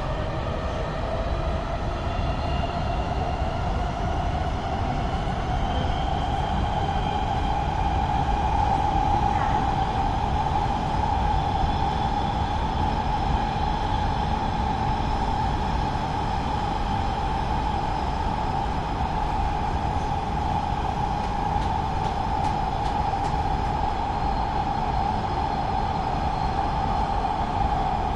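Los Angeles Metro Rail train's motors whining under a steady low rumble of the wheels on the track. The whine rises in pitch over the first several seconds as the train accelerates, then holds a steady pitch at running speed.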